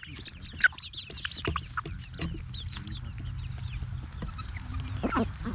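Flock of young hens cheeping and clucking in a busy stream of short, high calls, with a duck quacking about five seconds in.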